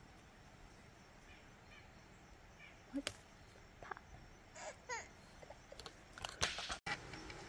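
Quiet garden ambience with scattered brief rustles and snaps of herb leaves being picked, and a few short chirps. A louder rustle near the end cuts off abruptly.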